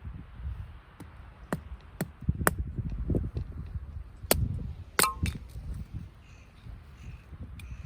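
A handful of sharp, irregular clicks and knocks, one about five seconds in ringing briefly like struck metal, over a low rumble.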